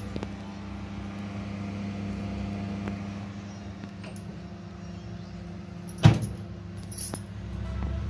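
Bread tin set into a microwave convection oven with a few light clicks, then the oven door shut with a sharp bang about six seconds in, over a steady low hum.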